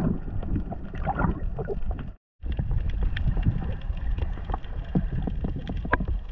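Water noise on a camera in the sea: a steady muffled low rumble with scattered small clicks. It cuts out for a moment about two seconds in.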